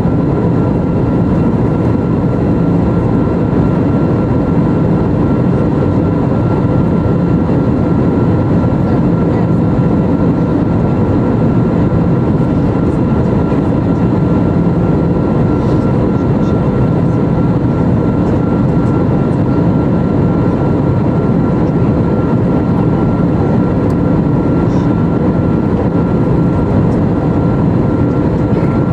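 Steady cabin noise inside an Airbus A320neo in flight: an even rush of air and engine noise with a faint high tone running through it.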